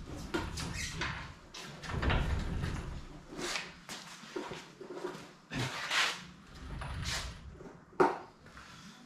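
Engine hoist carrying a truck cab being rolled and shifted by hand on a concrete floor: low caster rumbles with scattered knocks and scrapes, and a sharp click about eight seconds in.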